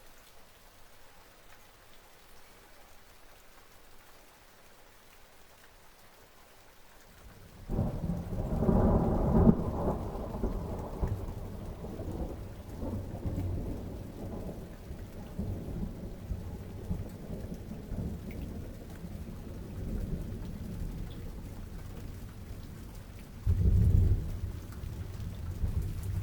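Thunderstorm: a steady hiss of rain, then a loud roll of thunder breaking in about eight seconds in and rumbling on as it fades, with a second thunderclap near the end.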